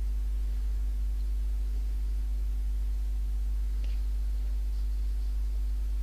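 Steady low electrical mains hum with a faint buzzing edge. A faint click about four seconds in.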